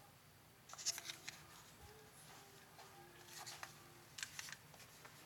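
Faint handling noise of a Motorola StarTAC phone's plastic body held in the hand: a few short scratchy rustles and light clicks, about a second in, around three and a half seconds and again near four and a half.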